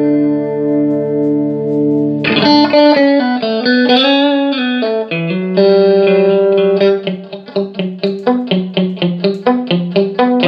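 Electric guitar played through a Carr Mercury V all-tube amplifier, being sound-tested after a repair. A held chord rings out for about two seconds, then single notes are picked, then a run of short, quick notes follows.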